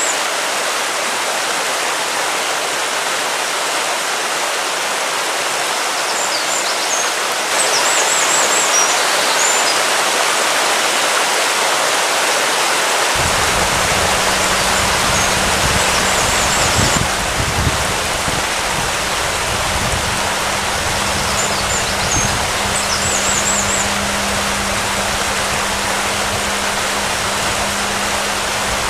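Steady rushing noise like flowing water, with a short high bird chirp recurring about every eight seconds. About halfway through, a low rumble with a steady low hum joins and carries on.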